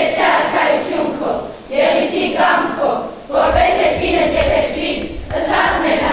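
A group of schoolchildren's voices together in unison, in short phrases with brief breaks between them.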